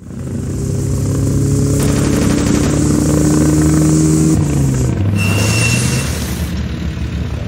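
Sound-effects mix of a light-machine-gun salvo over a vehicle engine drone. About four and a half seconds in the engine note drops and a brief high squeal follows: the pickup braking hard to a stop.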